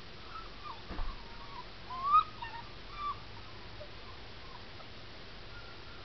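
Red Doberman puppy whining in a string of short high cries while held on its back, the loudest about two seconds in, then falling quiet. A single knock about a second in.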